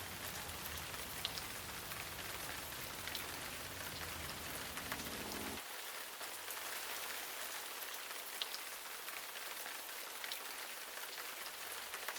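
Falling water: a steady, even hiss with a few faint ticks. A low rumble underneath stops abruptly about halfway through.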